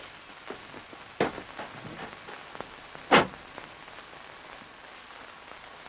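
A car door clicking and then shutting with a thump about three seconds in, over the steady hiss of an old film soundtrack.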